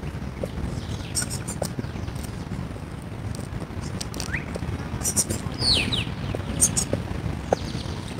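Light patter of sneakers stepping side to side on an exercise mat over a steady low outdoor rumble, with a few short bird chirps about four and a half and six seconds in.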